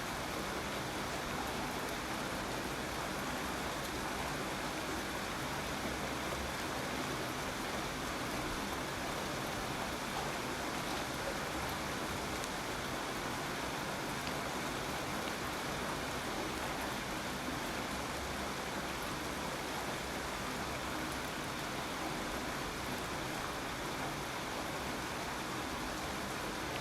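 Steady rain falling, an even unbroken hiss of drops with no separate events.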